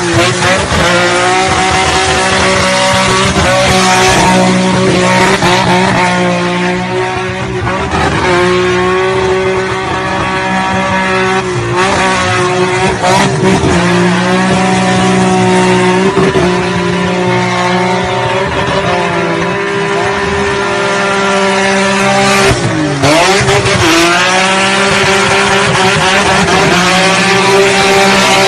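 Car engine held at high revs while the rear tyres spin and squeal in a drift, the pitch holding steady with brief dips and recoveries every few seconds as the throttle is worked.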